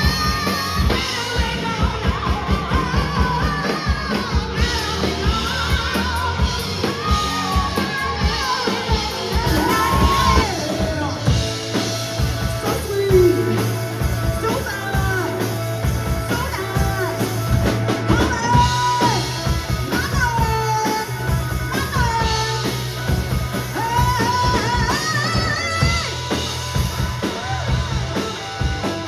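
Rock music with a singer, drums, bass and guitar, a sung melody over a steady beat.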